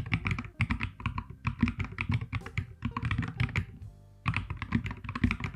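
Typing on a Cygnus Dactyl split mechanical keyboard fitted with MX-style Botany switches: a fast, uneven run of key clicks and clacks, with a brief pause a little before the end.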